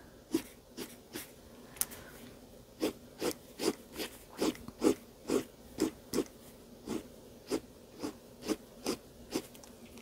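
Fine-tipped black marker scratching short, quick strokes on drawing-pad paper to draw twigs: a few scattered strokes at first, then a steady run of about two strokes a second from around three seconds in.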